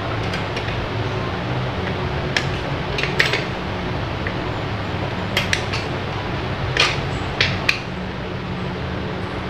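Metal parts of a gondola hoist clinking and knocking as the machine is handled and taken apart by hand: about ten separate sharp clinks, some in quick pairs, over a steady low hum.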